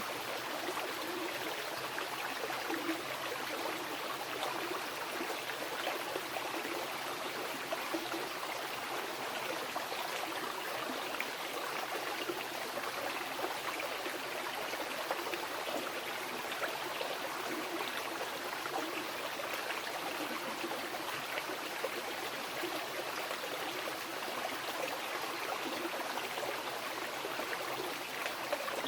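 Mountain river rushing and babbling over rocks, a steady, even flow of water with small splashes throughout.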